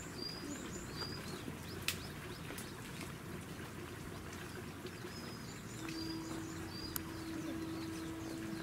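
Outdoor ambience with a bird calling over and over in short, high chirps that rise at the end, coming in small series. There are two sharp clicks, about two seconds in and about seven seconds in, and a steady low hum that starts about six seconds in.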